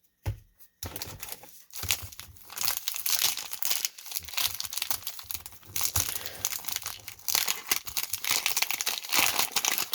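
Paper wax-pack wrapper of a 1991 Topps baseball card pack being torn open and crinkled by hand, a dense crackling rustle that starts about a second in and keeps going.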